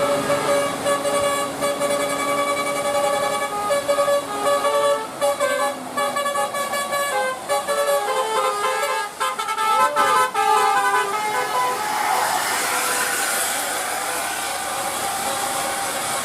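Indonesian 'telolet' bus horn, a set of musical air horns playing a quick tune of stepped notes for about eleven seconds. After it stops, a steady hiss remains.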